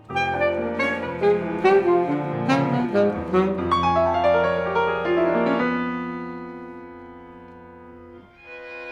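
Jazz ensemble with string quartet playing live, with saxophone, brass, piano and bowed strings. It plays a run of short accented notes and chords in the first three seconds or so, then held notes that slowly fade, and the strings come back in near the end.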